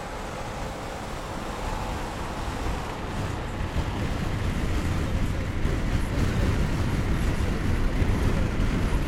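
Driving noise heard from inside a moving car at highway speed: a steady rumble of tyres and wind with no clear engine tone, growing gradually louder.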